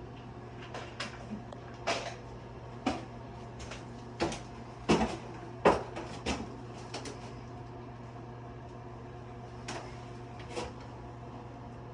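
Scattered sharp knocks and clanks of sheet-metal ductwork and tools being handled, about a dozen in all, the loudest bunched in the middle, over a steady low hum.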